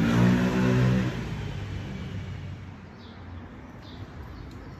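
A motor vehicle's engine running close by, fading away a little after a second in, leaving a low traffic hum. From about three seconds in come faint, short, high bird chirps.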